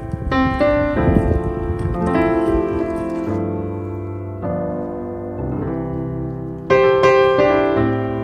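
Background piano music: sustained chords changing every second or so, with a louder chord near the end.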